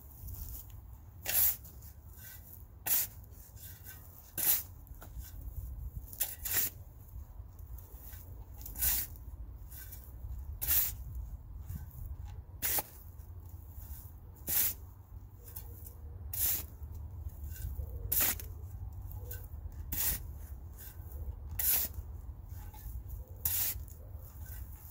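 Steel shovel blade scraping and turning loose soil in a planting hole, a short gritty stroke about every two seconds. Native soil, potting soil and decomposed granite are being blended together.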